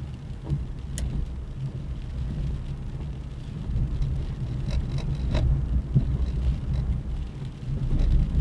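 Steady low rumble of a car driving on a wet road, heard from inside the cabin, with a couple of sharp clicks about a second in and again about halfway through.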